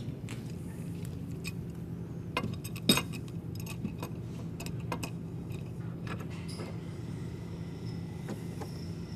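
Scattered clicks and clinks of a metal clamp being handled and tightened down over a wooden block, the sharpest click about three seconds in, over a steady low hum.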